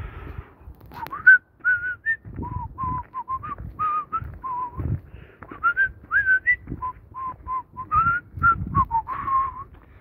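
A person whistling a tune: a run of short notes, mostly around one pitch, with a few upward slides.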